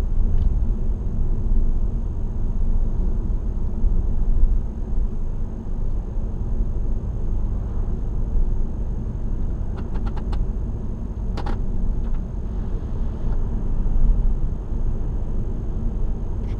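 Steady low rumble of a car driving along, with engine and road noise heard from inside the cabin. A few short clicks come about ten seconds in and again about a second later.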